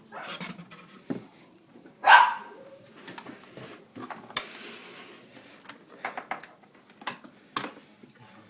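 A dog barks once, loudly, about two seconds in, with scattered clicks and knocks around it.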